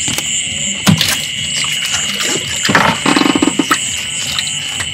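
Steady high-pitched chorus of night insects, with a couple of sharp knocks about a second in and a burst of rapid splashing and rattling around three seconds in.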